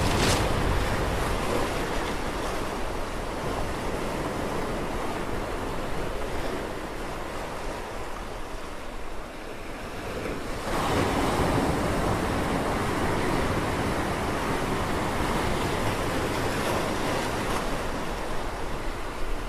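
Ocean surf washing over rocks: a steady rush of waves that eases about nine seconds in and swells again about a second later.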